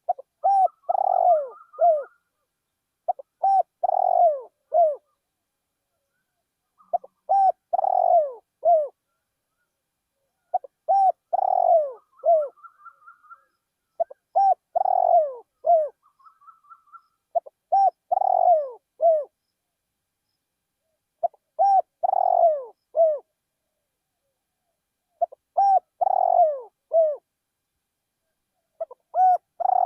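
Spotted dove cooing: the same multi-note coo phrase repeated about every four seconds. A faster, higher run of notes comes in three times alongside it.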